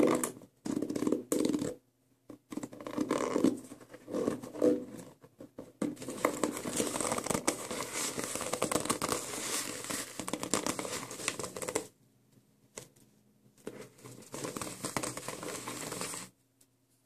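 Fingers scratching and rubbing the stitched leather upper of a boot lying on a tile floor. The first few seconds come in short scratchy bursts, then comes a long continuous stretch of scratching, a brief pause about twelve seconds in, and more rubbing that stops shortly before the end.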